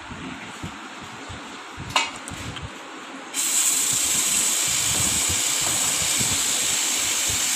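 Aerosol spray can sprayed in one long, steady hiss starting about three and a half seconds in. Before it, faint handling noises and a single click about two seconds in.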